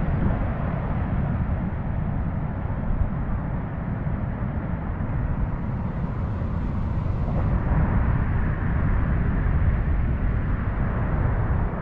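Wind buffeting the microphone, with the rush of surf breaking on coastal rocks beneath it.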